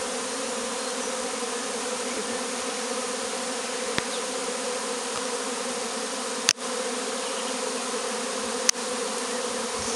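Honeybee swarm buzzing steadily as it clusters on a basket, with many bees flying close around. A few sharp clicks cut through, the loudest about six and a half seconds in.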